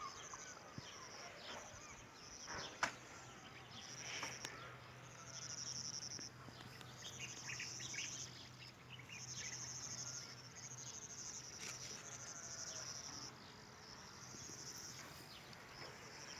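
Crickets trilling in high-pitched bursts of about a second, over and over, with scattered short bird chirps. A faint low hum runs through the middle, and a sharp click comes about three seconds in.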